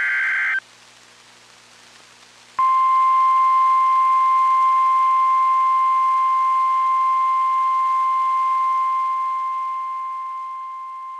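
The last of a SAME digital header burst, a brief buzzy data squawk, is followed about two seconds later by the NOAA Weather Radio 1050 Hz warning alarm tone. The alarm is one steady high tone held for about nine seconds and slowly growing quieter, and it announces the warning-level alert that follows.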